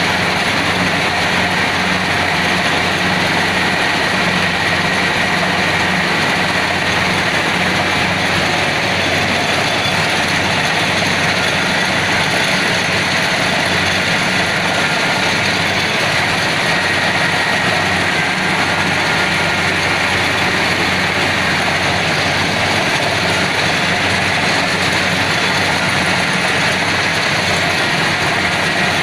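Kubota DC70 PH+ combine harvester running steadily: a dense, constant engine and machinery noise with a low hum and a faint high whine above it.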